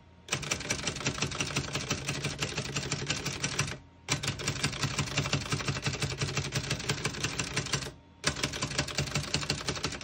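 Continuous typing on a 1941 Remington Quiet Model 1, a Noiseless-type portable typewriter: a fast, even stream of keystroke clicks, broken by two short pauses about four and eight seconds in.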